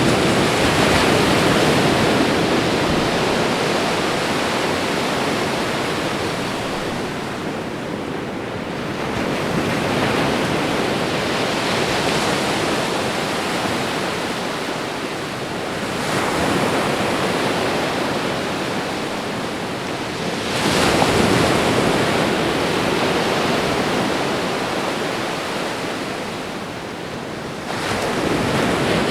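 Ocean waves washing onto a shore: a continuous rush that swells as each wave breaks, about every five to ten seconds.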